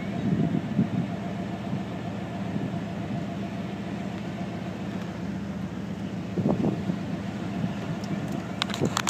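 A vehicle engine idling steadily, with a few sharp clicks near the end.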